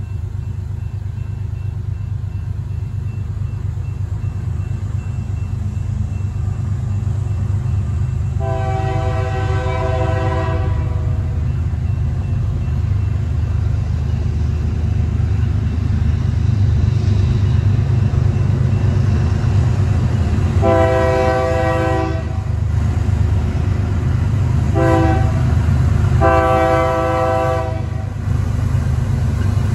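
Approaching freight train's lead BNSF GE diesel locomotives sounding the air horn in the grade-crossing pattern: long, long, short, long, with a long gap after the first blast. A steady low engine rumble grows louder as the train nears.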